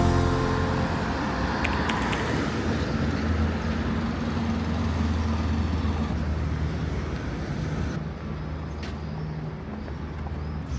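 Street traffic: a steady low engine hum under the hiss of passing vehicles, fullest a couple of seconds in and thinning toward the end.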